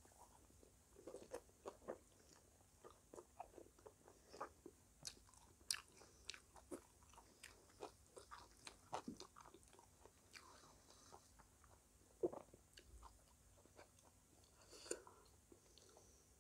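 Chewing and crunching of crisp fried samosa pastry: a run of irregular, sharp crackles.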